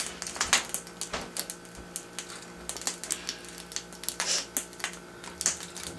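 Copper-coil pop-pop steamboats in sardine-can hulls putt-putting: quick, irregular clicks, several a second, with a faint steady hum underneath.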